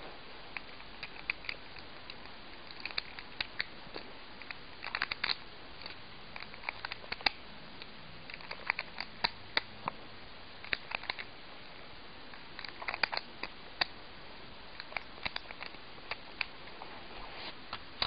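Plastic Lego bricks clicking and clattering as red brick rounds are pushed one by one into a Lego magazine: irregular sharp clicks, single and in quick clusters, over a steady hiss.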